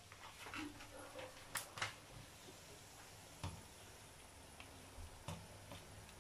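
Daing (dried fish) frying in oil in a pan for crispiness: a faint steady sizzle with a few sharp pops and clicks, the later ones as tongs turn the fish.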